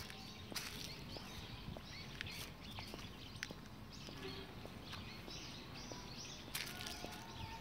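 Small birds chirping, a string of short arched chirps that grows busier near the end, with a few soft steps and crackles of dry leaves underfoot.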